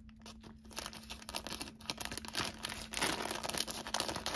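Thin clear plastic bag crinkling and crackling as it is handled and cut open with small scissors. The crinkling grows busier about halfway through.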